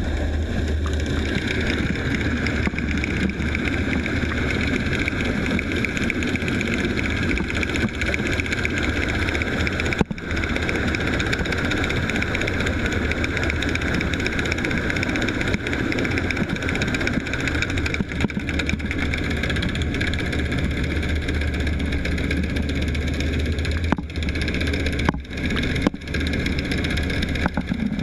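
A boat's inboard engine and propeller running, heard underwater beneath the hull as a steady drone with a hum under it. A few short dropouts break it, once about a third of the way in and several times near the end.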